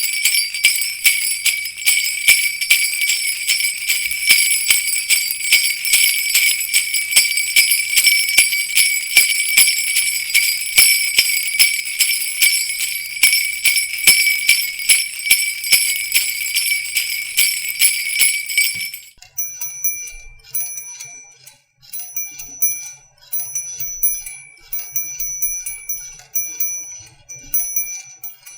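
Jingle bells shaken continuously in rapid, dense jingling for about nineteen seconds, then an abrupt change to angel chimes: small bells struck one at a time, tinkling more sparsely and quietly with clear ringing tones.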